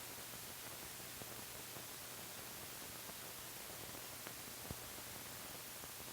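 Faint steady hiss from an old film soundtrack, with a low hum and a few small clicks, and one slightly louder pop about three-quarters of the way through.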